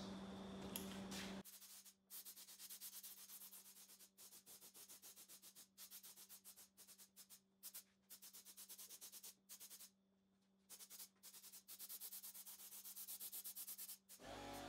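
Faint, rapidly pulsing hiss of a Critter siphon spray gun on compressed air spraying gloss black oil-based paint, in runs broken by short pauses.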